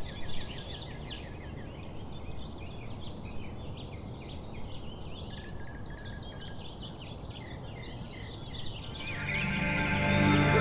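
Wild birds chirping and singing outdoors: many short quick calls overlapping over a steady low background noise. Music fades in from about nine seconds in and grows louder toward the end.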